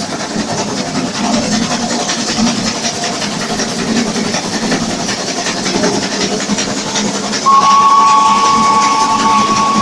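Kp4 narrow-gauge steam locomotive running with steam hissing from its cylinder drain cocks. About seven and a half seconds in, its steam whistle starts a long two-note blast, the loudest sound here.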